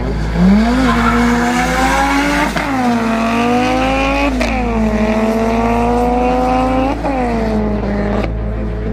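A BMW and an Audi Coupe Quattro 2.2 turbo launch off the drag-strip start line and accelerate hard. The engine pitch climbs, drops sharply at three upshifts about two seconds apart, then fades as the cars pull away down the strip.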